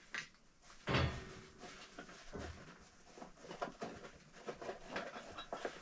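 A few faint knocks and thumps, the two loudest about one second and about two and a half seconds in.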